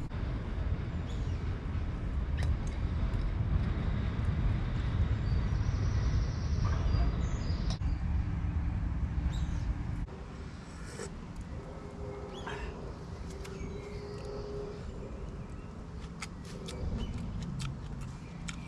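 A dense low rumble that cuts off abruptly about ten seconds in. After that comes quieter outdoor background with a faint steady hum, a few short chirps and a run of sharp little clicks near the end.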